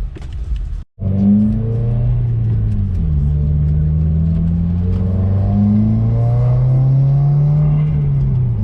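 Subaru WRX's turbocharged flat-four engine pulling under throttle. Its pitch dips about two seconds in, rises slowly for several seconds, then drops near the end as it comes off or changes gear. There is a brief cut to silence about a second in.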